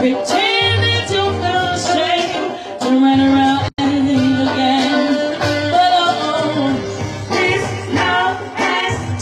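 A woman singing lead with a live soul band, her voice held on long notes over bass and drums. The sound cuts out for an instant a little under four seconds in.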